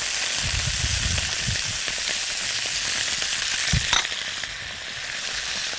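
Whole links of Egyptian baladi sausage sizzling in a little oil in a hot frying pan, a steady hiss. A few low thumps in the first second or so and a sharp click about four seconds in.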